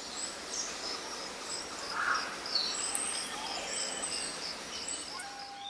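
Forest ambience: insects chirping in an even, repeating pulse, with a few short bird calls over a steady background hiss.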